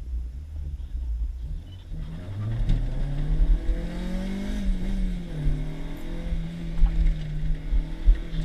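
K24A2 2.4-litre four-cylinder engine of an Acura RSX, heard from inside the cabin. It pulls low at first, then revs up hard from about two seconds in, dips briefly about five seconds in, and then holds a steady high note over a low rumble.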